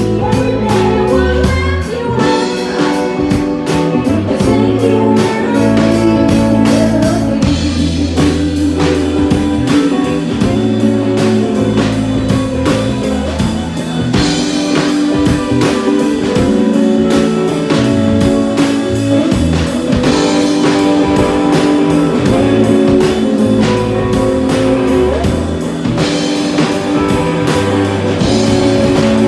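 Live band playing a blues-rock song at a sound check: guitar over a steady bass line and drum kit, with singing.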